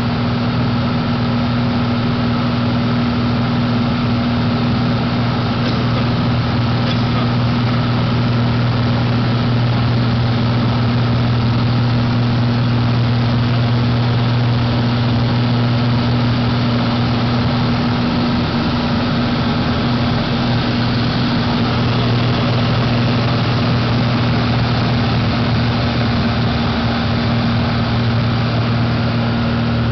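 Light aircraft's engine and propeller running steadily, heard from inside the cockpit as a loud, constant drone with a deep hum.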